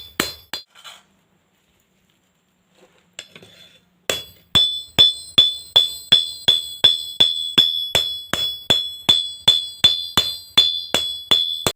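Hammer blows on a steel knife blade against an anvil, flattening the welded blade level. Each strike rings with a high, clear tone, about two and a half a second. A few blows come first, then a pause of about three seconds, then a steady run starts again about four seconds in.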